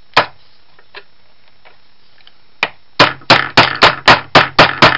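Hammer tapping a Roto window corner drive to seat its replacement steel band into the housing. One sharp knock near the start, then from about three seconds in a quick run of sharp taps, about four a second.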